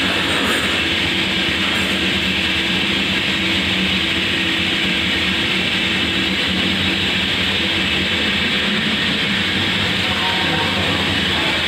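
Steady machinery noise: a continuous hum under an even hiss, with no change or break.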